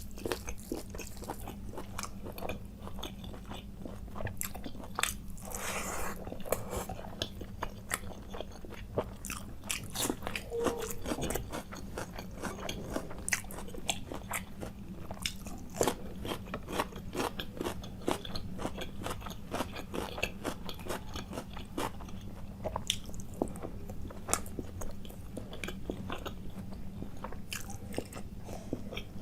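A person chewing and biting food close to the microphone, with many small, irregular crisp clicks and crunches, over a steady low hum.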